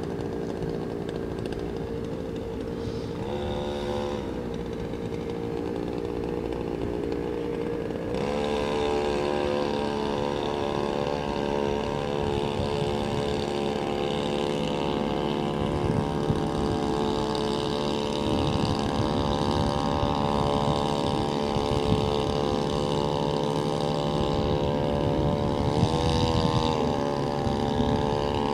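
Small outboard motor on an inflatable dinghy running at idle, with a brief rev about three seconds in. At about eight seconds it throttles up and runs steadily under way, with another short rise and fall in pitch near the end.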